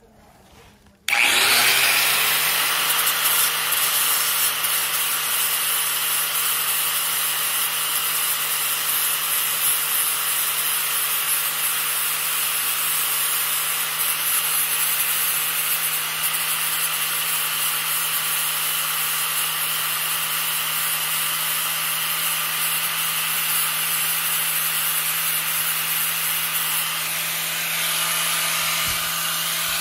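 Electric angle grinder with a sanding disc starting about a second in, spinning up quickly, then running steadily while grinding out blisters on a fiberglass boat hull, a constant rasping over the motor's steady whine.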